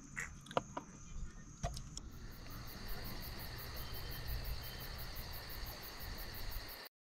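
Night insects chirping in a steady chorus: a continuous high trill with a fast, even high pulsing, about seven pulses a second. In the first two seconds a few small clicks and knocks sound, and the chorus cuts off abruptly near the end.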